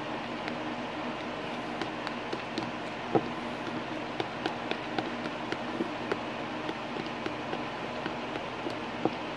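A plastic spoon stirring a wet lotion-and-water mixture in a plastic bowl, with light, irregular clicks of the spoon against the bowl a few times a second, over a steady background hum.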